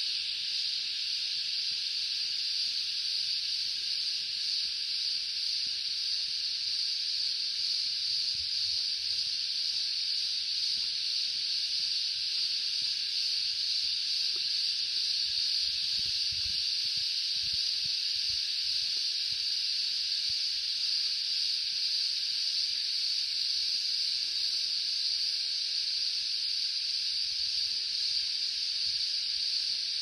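A chorus of cicadas: one unbroken, steady high-pitched drone.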